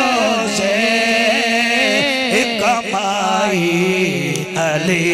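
A man chanting a manqabat, a devotional poem in praise of Hussain, drawing a line out in long, wavering held notes without a break.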